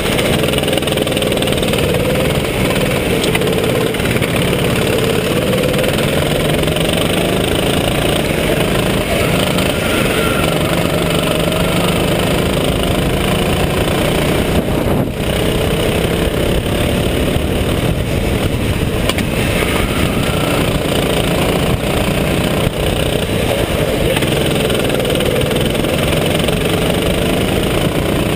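Go-kart engine running hard on track, heard from a camera mounted on the kart, with steady wind and road noise over the microphone.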